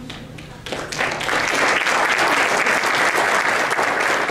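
Audience applauding in a banquet hall: the clapping starts about a second in, builds quickly, and holds steady.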